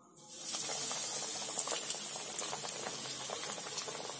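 Hot oil bursts into sizzling and crackling just after the start as a breaded chicken cutlet is slid into it for deep-frying, then keeps up a steady frying hiss with small pops.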